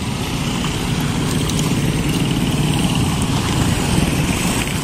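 Several small motorcycles and scooters riding past close by, their engines running steadily.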